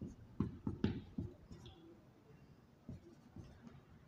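Marker pen writing on a whiteboard: a few short strokes and taps in the first second or so, then only faint scattered scratches.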